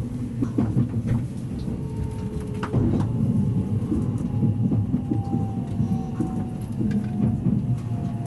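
683-series electric express train heard from inside the passenger car: a steady low rumble with a few light knocks. From about five seconds in, a faint whine slowly falls in pitch.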